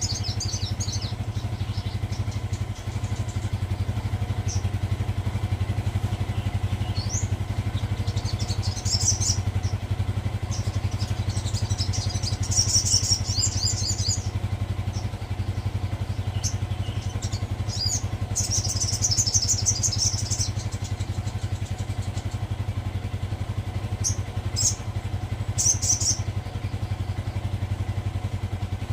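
A sogon songbird singing in repeated high, fast trilling phrases with short pauses between them, over a steady low hum.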